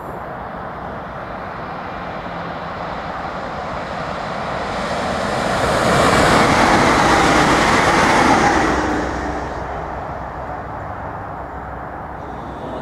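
Siemens Class 350 Desiro electric multiple unit passing at speed. The rush of wheels and air builds up, is loudest for a couple of seconds just past the middle as it goes by, then fades away.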